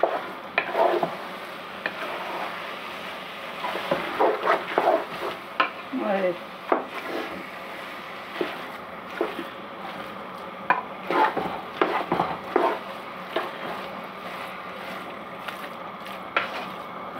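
Spatula stirring and scraping chicken keema in a nonstick pot, with irregular knocks of the spatula on the pot over a steady sizzle of the mince frying.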